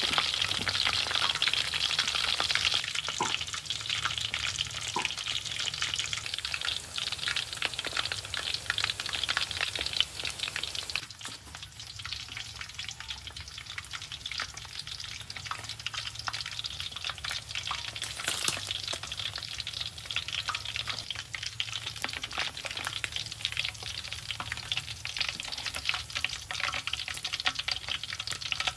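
Chicken wings deep-frying in a wok of hot oil: a steady, dense crackling sizzle that eases a little partway through, with a few sharp clicks of metal tongs.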